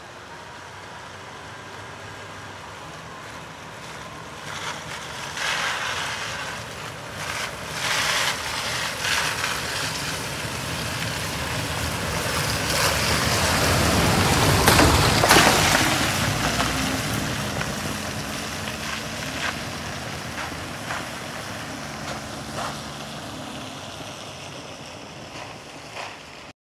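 A vehicle passing on a wet dirt road. Its rushing tyre and engine noise builds to a peak about halfway through and fades again, with scattered knocks along the way.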